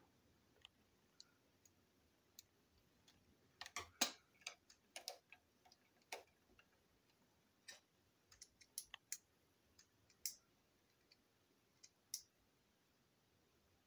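Small black plastic parts clicking and tapping as they are handled, pulled apart and set down on a tabletop: a quick run of clicks about four seconds in, the loudest among them, then scattered single clicks.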